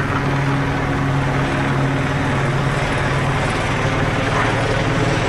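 Police helicopter circling overhead: a steady, loud drone of rotor and engine, its pitch shifting slightly a couple of seconds in.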